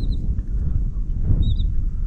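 Wind buffeting the microphone in a low, uneven rumble, with two brief high chirps, one at the start and one about one and a half seconds in.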